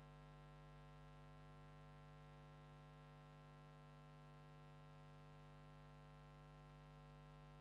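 Near silence, with a faint, steady electrical hum on the recording that does not change.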